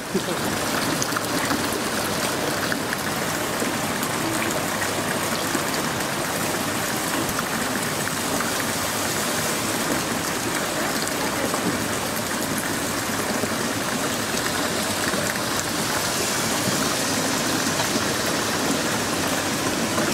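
Steady rain falling on wet paving and other outdoor surfaces.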